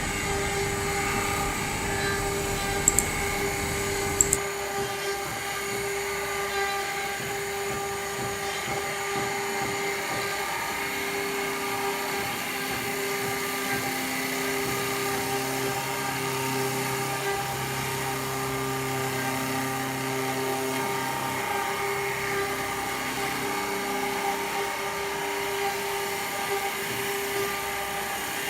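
Double-spindle CNC wood lathe running, turning two wooden table-leg blanks at once with side-fed cutters: a steady machine whine with a constant hum, and two sharp clicks about 3 and 4 seconds in.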